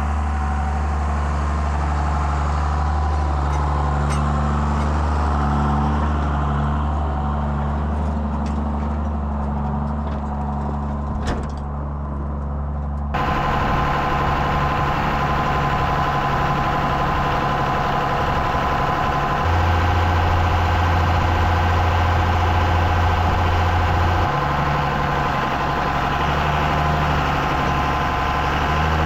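Farm tractor's diesel engine running steadily, with a few faint clicks in the first half. About halfway through it gives way suddenly to a brighter engine note, which takes on a deeper steady hum for a few seconds near the end.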